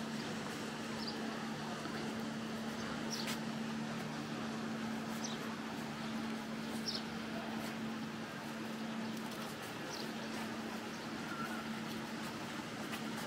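Outdoor ambience: a steady low hum under a wash of background noise, with a handful of short high chirps scattered through it.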